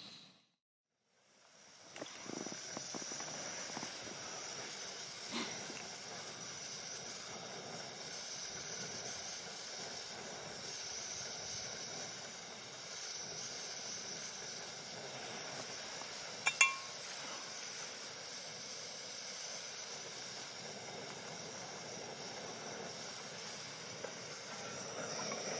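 Steady hiss of a portable gas camping stove burner heating water, coming in a second or two after a moment of silence. About two-thirds of the way through, a single sharp metallic clink sounds, like a pot or mug being knocked.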